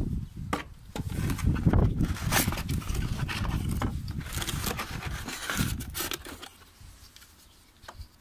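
Unboxing handling noise: cardboard packaging scraping and rustling and hard plastic battery packs clicking as they are pulled from the box insert, over a low rumble of handling. Much quieter for the last second and a half.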